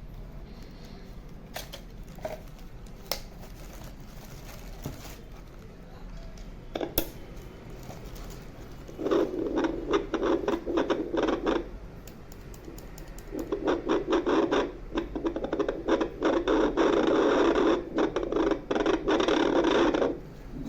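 A Vcomin fetal doppler's speaker picking up a heartbeat. At first there are only faint scratches and clicks as the probe searches. From about nine seconds in comes a loud, pulsing beat; it drops out briefly a couple of seconds later and then returns until near the end.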